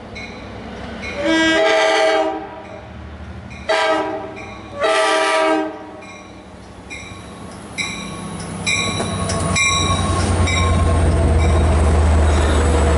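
LIRR DE30AC diesel-electric locomotive sounding its air horn in three blasts, long, short and long, as it approaches a level crossing, with a crossing bell ringing in the background. From about ten seconds in, the locomotive and its bilevel coaches pass close by with a loud, steady rumble of engine and wheels.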